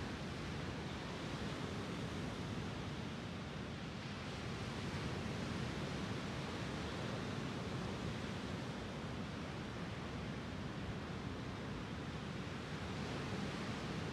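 Small Lake Superior waves breaking and washing onto a sandy shore: a steady wash that swells a little about five seconds in and again near the end.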